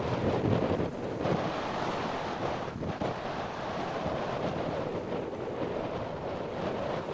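Wind buffeting the microphone over the wash of waves in an ocean inlet: a steady rushing noise without a clear engine note.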